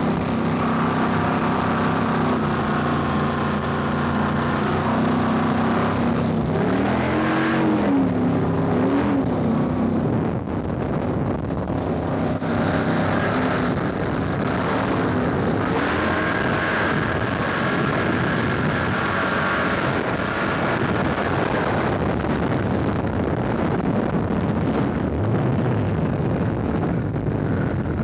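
Ski boat engine running at speed under a rush of wind and water. Its pitch rises and falls briefly about seven to nine seconds in, and in the second half the engine tone fades behind the wind and water noise.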